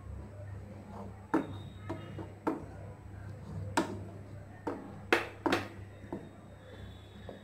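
Wooden spatula stirring thick kheer in a nonstick pan, knocking and scraping against the pan at irregular intervals, about eight sharp knocks, over a steady low hum.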